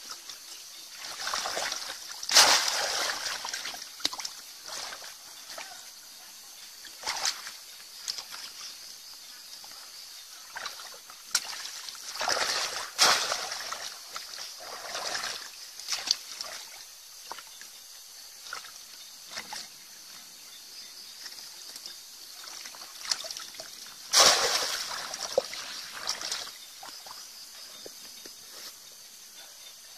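Shallow pond water splashing and sloshing as a woven bamboo plunge basket is pushed down and worked through it by hand. It comes in a few separate bursts, the loudest about two seconds in and again about twenty-four seconds in.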